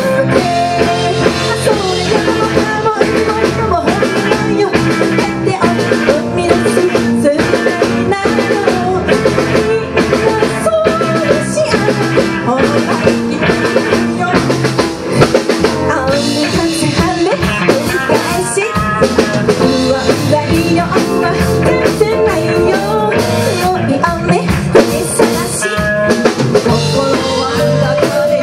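Live rock band playing: a woman sings into a microphone over a drum kit, electric guitar and keyboard.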